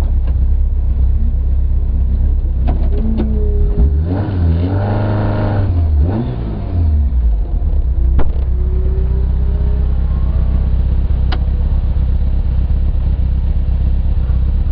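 Rally car driven hard on a special stage: a steady loud rumble of engine and road noise, with the engine revving up and dropping back for a few seconds around the middle. A few sharp knocks come through.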